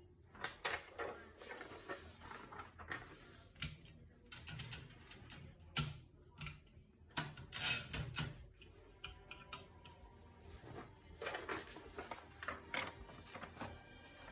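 Olivetti Lettera 32 portable manual typewriter being worked: its keys and mechanism click and clack in irregular strokes.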